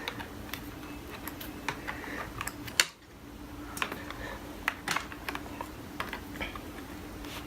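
Scattered small plastic and metal clicks and taps of a RAM stick being worked loose from a laptop's memory slot, with the sharpest click about three seconds in.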